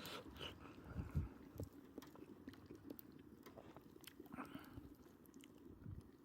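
A person chewing food with the mouth close to the microphone: faint, irregular small clicks and soft low thumps.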